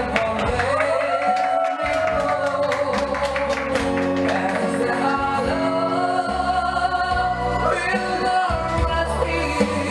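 A man singing live into a microphone, holding long notes, with amplified acoustic guitar accompaniment.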